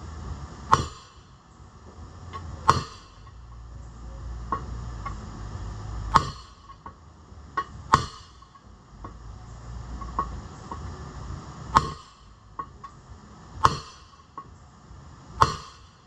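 Hammer blows on a steel bar driven down onto a seized piston in the cylinder sleeve of a John Deere 1010 diesel engine: about seven heavy, sharp metallic strikes with a short ring, spaced roughly two seconds apart, with lighter knocks between. The piston is badly rust-seized and does not move under the blows.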